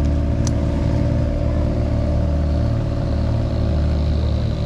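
An off-road race vehicle's engine idling steadily, with a short sharp click about half a second in.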